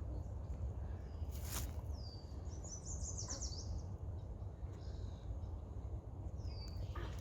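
A songbird calls twice, each time a short downward note, the first running into a rapid trill, about two seconds in and again near the end. Under it is a steady low rumble, with one sharp click about a second and a half in.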